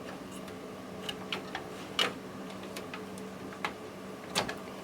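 Hard drive cable connectors being unplugged and handled inside a PC case: a series of small, irregular plastic clicks and taps. A steady low hum runs underneath.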